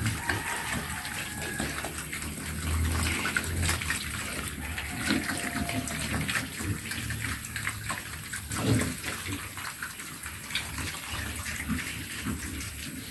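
Pigs eating at a concrete trough, a continuous wet slurping and chomping of feed with many small irregular clicks.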